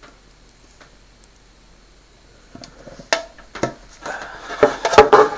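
Plastic table fan being handled and turned over: a few separate knocks partway through, then a quick burst of clattering and rattling near the end.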